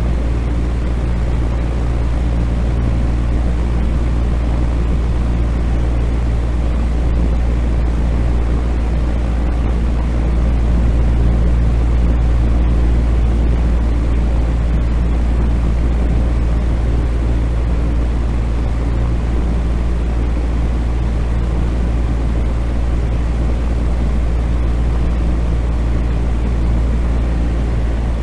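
Electric fan running steadily: an even rushing of air over a low motor hum.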